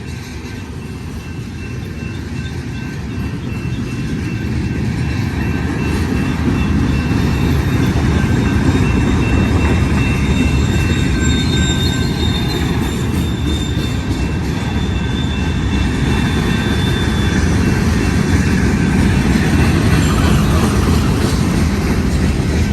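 Freight train cars rolling past on the rails, a steady rumble of wheels that grows louder over the first several seconds and then holds. High, thin wheel squeal rings out over it for about ten seconds in the middle.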